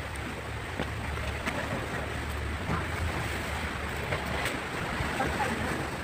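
Steady wind rumbling on the phone's microphone, with the wash of sea waves behind it.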